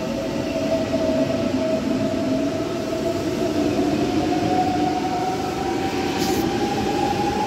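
ICE high-speed train moving along the platform: steady rumble of the train with a motor whine that rises slowly in pitch as it gathers speed. A brief hiss about six seconds in.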